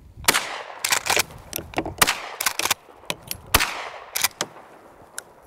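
Browning BPS pump-action shotgun firing slugs: three shots about a second and a half apart, each with a ringing echo. Between the shots come sharp clacks of the pump being worked to chamber the next shell.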